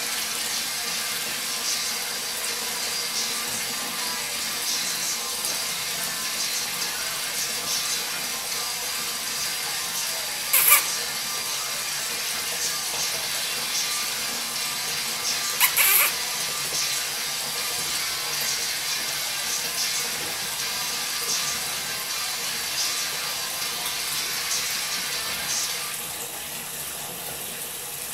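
Water running steadily from a tap into a sink, with two brief louder noises about ten and sixteen seconds in; the running water quietens a little near the end.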